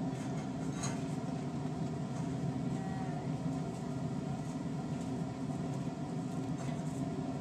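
Steady low drone of laboratory ventilation, with a faint hum and a light click about a second in.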